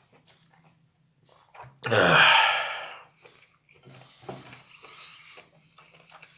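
A person lets out one loud breathy huff, like a heavy sigh or wheeze, about two seconds in, lasting about a second. Faint clicks and small mouth sounds of eating come before and after it.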